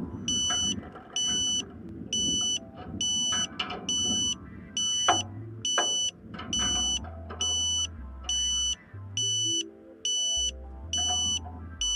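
Ka-Sat TRIA transceiver's pointing beeper giving short, high, identical beeps about twice a second. This is the ambulance tone, which tells the installer the dish is on the satellite.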